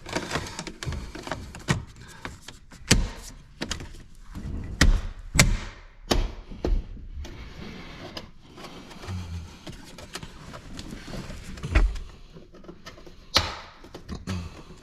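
Plastic dashboard trim and its clips being worked by hand: irregular clicks, taps and knocks, with a few louder knocks spread through.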